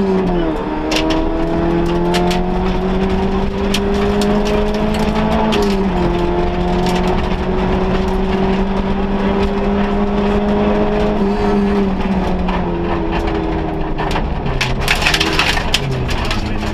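Vauxhall Nova rally car's engine heard from inside the cabin, running hard on a stage. The note drops at gear changes about half a second in, near six seconds and again around eleven seconds, then settles to a lower note near the end as the car slows. Sharp ticks of loose stones hitting the car come throughout.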